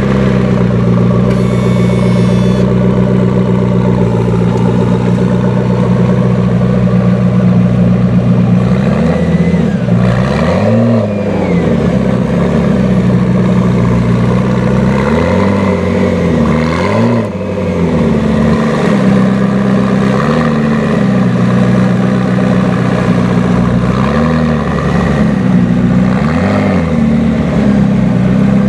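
A supercar engine idling loud and steady, blipped in short revs that rise and fall back several times, in clusters from about nine seconds in.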